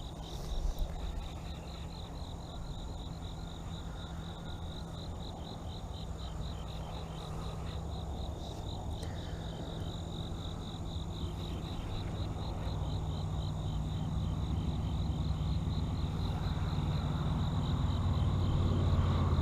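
Insects chirping, a high chirp repeating evenly about three times a second. A low steady hum grows louder through the second half.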